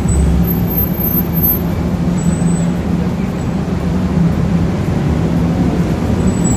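Steady city street traffic noise with a continuous low hum, a constant buzzing drone.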